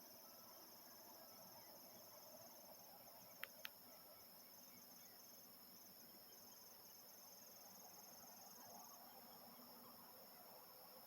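Faint evening chorus of crickets and other insects trilling in steady high-pitched tones. One pulsing trill stops about nine seconds in. Under it is a faint low rumble of distant harvest machinery, and two short clicks come about three and a half seconds in.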